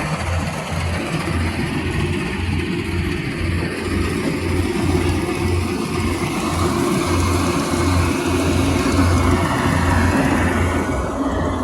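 Engine running steadily, with a low pulsing about twice a second.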